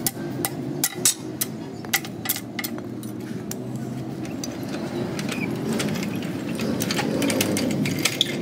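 A machine running steadily in a repair workshop, with irregular sharp clicks and knocks over it. The knocks are frequent in the first half and sparser in the second.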